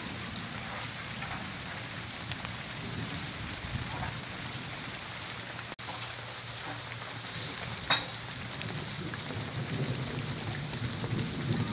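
Steady rain falling, an even hiss throughout, with one sharp knock about eight seconds in.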